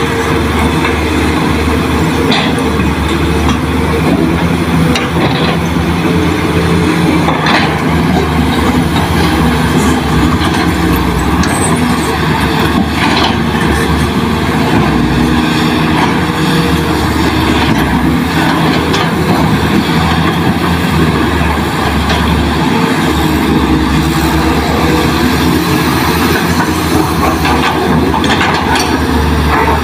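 Diesel engines of several hydraulic excavators, the nearest a Kobelco, running with a steady, even drone, with a few sharp knocks scattered through it.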